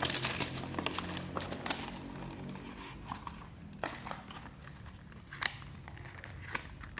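Thin clear plastic packaging crinkling as it is handled, dense for the first couple of seconds, then thinning to a few separate clicks and taps as the cardboard phone box is handled.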